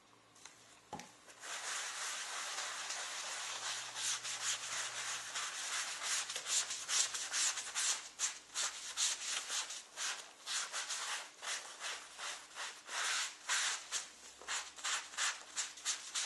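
Scrubbing the surface of a leather jacket sleeve during cleaning with gel cleaner: a scratchy rubbing that starts about a second and a half in, runs steadily, and from about halfway breaks into separate quick back-and-forth strokes.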